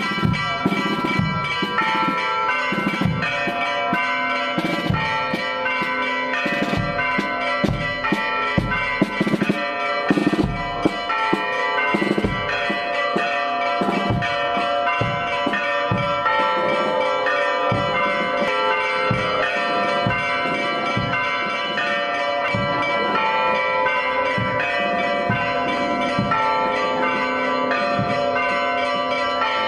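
Church bells ringing festively for a procession: several bells struck in quick, irregular succession, their tones overlapping and ringing on. The strikes are densest in the first half.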